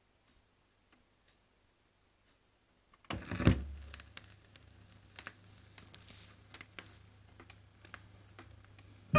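Stylus landing on a spinning 7-inch vinyl single with a thump about three seconds in, then the lead-in groove's surface crackle and scattered pops over a low hum.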